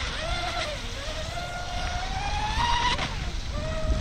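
High-pitched whine of an RC speedboat's Surpass Hobby 3670 2260kv brushless motor and propeller running at speed. The pitch dips at the start, rises steadily as the throttle opens, then drops sharply about three seconds in and holds steady. A low rumble runs underneath.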